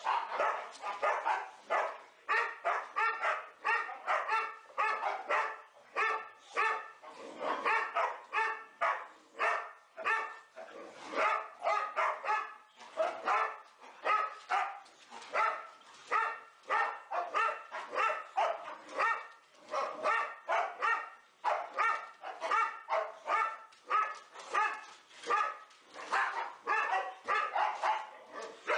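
Boxer dogs barking in short, rapid play barks, about two a second, without a break.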